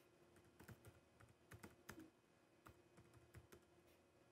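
Faint typing on a laptop keyboard: irregular key clicks in short runs, with pauses between them.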